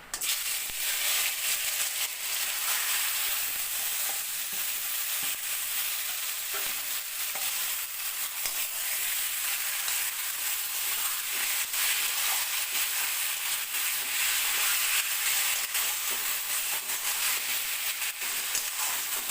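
Marinated chicken sizzling in hot mustard oil in a kadai, the sizzle starting suddenly as the chicken goes into the pan, then running steadily while it is stirred.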